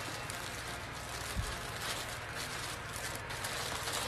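Plastic packaging bags rustling and crinkling as a clear plastic bag is handled and opened.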